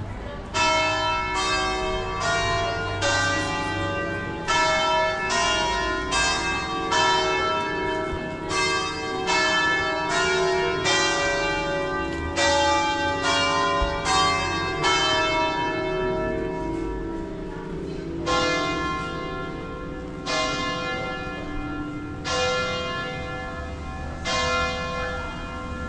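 Church bells ringing: several bells of different pitch struck in quick succession, about one and a half strikes a second, for some fifteen seconds. Then four slower strikes about two seconds apart, each left to ring out.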